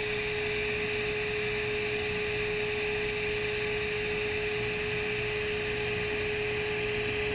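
TIG welding arc burning steadily on steel pipe during the hot pass: an even hiss with a constant tone running through it.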